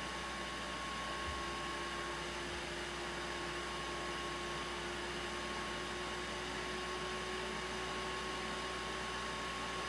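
Steady hiss with a faint electrical hum and a thin high whine, unchanging throughout; no distinct event.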